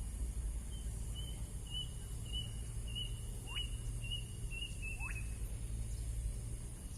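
A bird calling a series of short high notes at an even pace, about two a second, with two quick downward-sliding whistles in the middle of the series; a steady low rumble underneath.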